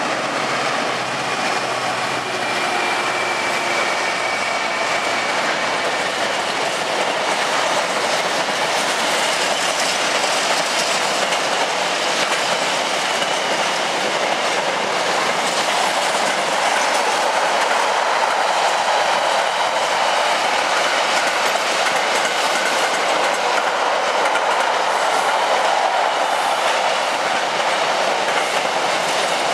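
Freightliner container freight train passing, a long rake of loaded intermodal container wagons giving a steady noise of wheels running on the rails.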